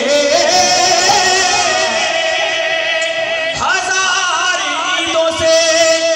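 Man singing a manqabat into a microphone, drawing out long held notes in a wavering, ornamented melody. About three and a half seconds in there is a short break, then a higher phrase.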